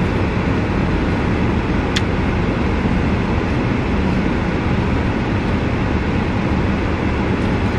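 Steady rushing noise inside a parked car's cabin, from the air-conditioning fan blowing with the engine running. A single light click comes about two seconds in.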